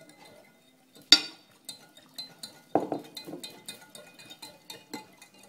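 Spoon stirring jelly crystals into boiling water in a glass measuring jug to dissolve them, ticking and clinking against the glass, with one sharp loud clink about a second in and a duller knock near three seconds.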